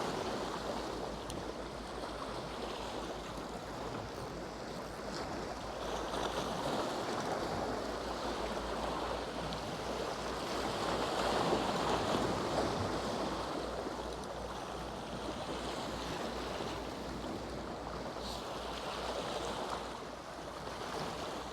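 Surf washing against jetty rocks, a steady sea noise that swells and eases every several seconds.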